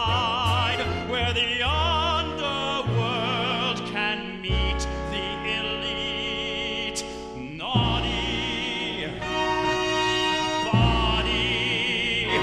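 A man sings a Broadway show tune in a full, operatic style with wide vibrato, backed by a theatre orchestra. About halfway through, the orchestra holds a long chord, then sweeps upward into the next sung phrase.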